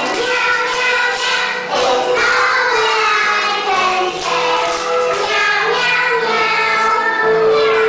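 A group of young children singing a song together in unison, with music behind them.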